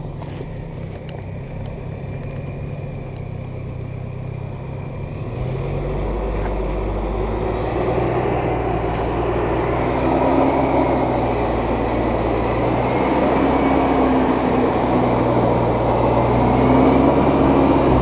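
Lifted off-road 4x4's engine running at low revs, stepping up in pitch and getting louder about five or six seconds in as it pulls the rig up over boulders, then holding steady under load.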